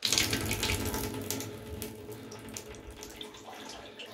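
Water running from an opened tap, starting abruptly and loudest in the first second, then flowing on a little lower; the tap is opened to check whether the water supply has been shut off.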